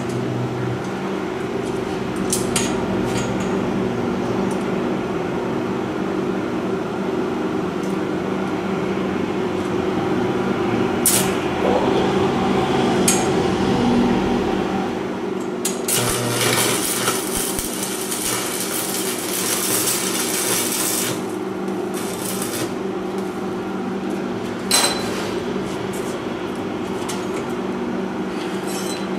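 Arc welding on a steel conduit-pipe frame: a couple of short crackling bursts about eleven and thirteen seconds in, then a longer sizzling, crackling weld lasting about five seconds past the halfway point, over a steady low hum.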